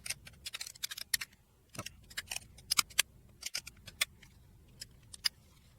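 Irregular run of sharp little plastic clicks: keys being pressed one after another while a label is typed out on a handheld label maker.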